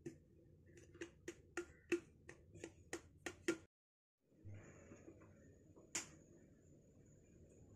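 A quick run of about ten sharp clicks, roughly three a second, then the sound drops out for a moment at an edit. After it, faint room noise with one more click and a thin, steady high whine.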